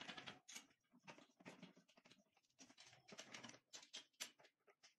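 Faint, irregular clicks, taps and short scrapes from a small instrument trolley's panel and casters being handled and turned over during assembly.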